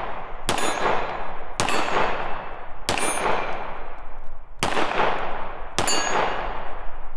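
Five slow, single shots from a Hi-Point C9 9mm pistol, spaced about a second to a second and a half apart. Each shot is followed by a long fading ring from steel plate targets. The gun cycles every round without a malfunction.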